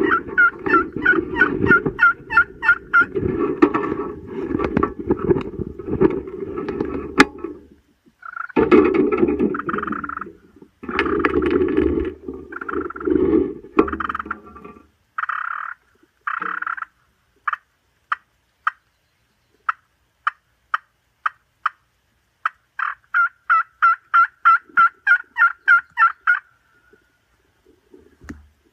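Turkey yelping and clucking: fast runs of yelps with short breaks, then single clucks about a second apart, then another quick run of about four yelps a second that stops shortly before the end.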